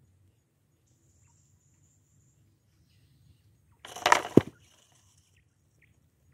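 Bamboo basket trap dropping shut onto the ground over feeding quail: one short clattering thump about four seconds in.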